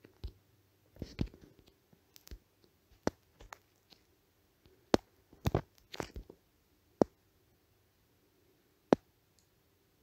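Irregular sharp clicks and small taps close to the microphone, about a dozen in all, bunched about a second in and again around five to six seconds in, with single loud clicks later on.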